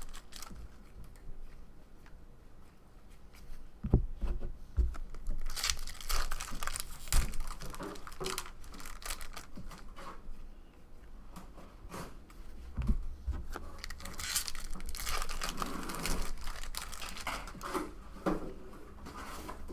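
Trading card packs being torn open, their wrappers crinkling, in two bouts with a few dull thumps of cards and packs being handled.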